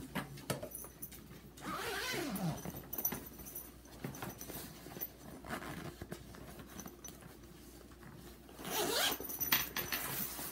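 Zipper of a fabric garment bag being run, in two long pulls about two seconds in and again near the end, with rustling and handling of the bag between them.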